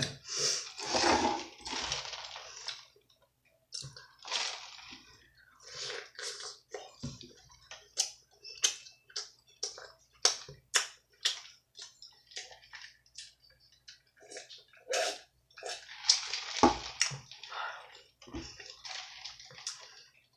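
Close-miked chewing of pizza: irregular bursts of mouth noise, with a run of sharp clicks in the middle.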